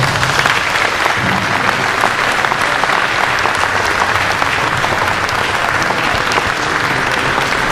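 Audience applauding in a large hall: dense, steady clapping that breaks out all at once.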